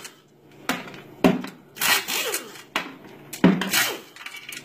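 Hand ratchet with a 13 mm socket working the oil-pan bolts of a 4L60E automatic transmission: about five short ratcheting bursts, one every half to three-quarters of a second.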